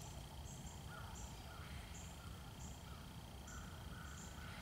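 Faint woodland animal calls: short chirps repeating about twice a second, over a steady high-pitched drone and a low rumble.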